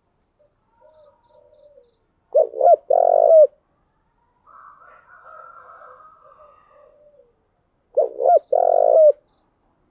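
Spotted dove cooing: two loud phrases about five and a half seconds apart, each a couple of short notes followed by a longer coo, with fainter, softer cooing in between.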